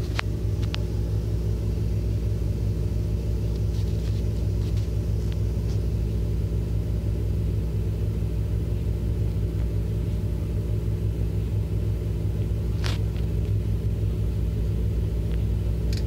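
Steady low hum and rumble with several steady low tones. There is a faint click just after the start and a sharper click about thirteen seconds in.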